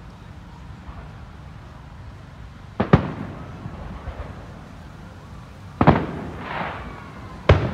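Aerial firework shells bursting: a quick double bang about three seconds in, another bang near six seconds with a short crackling hiss after it, and a third bang near the end.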